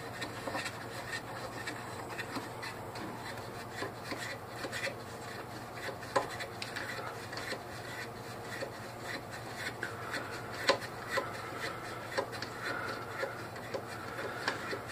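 Small clicks, taps and rubbing as a hand works at fittings on the side of a Bell & Howell 8mm projector's cast aluminum case, trying to pop them off, with two sharper knocks, one about six seconds in and one near eleven seconds.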